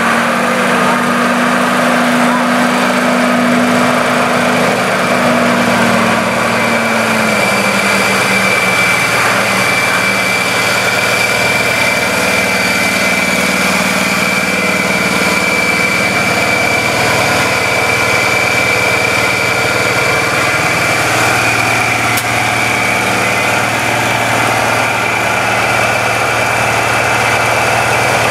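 Brush fire truck's engine running steadily while it sprays water onto the ground, with a steady hiss over the engine note. The engine note drops slightly about seven seconds in.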